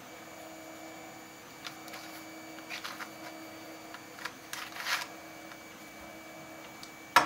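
3D-printed plastic puzzle pieces of an anatomical heart model clicking and scraping as they are turned and fitted together by hand, with a sharp plastic knock near the end.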